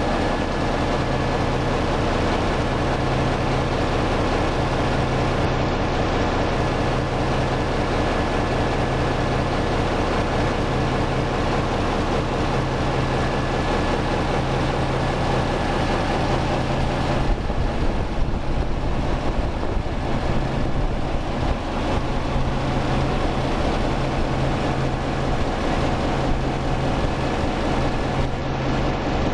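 Large multi-cylinder diesel generator set of 608 kVA running steadily, a loud dense machine din with a pulsing low rumble. About two-thirds of the way through, the deep rumble grows heavier.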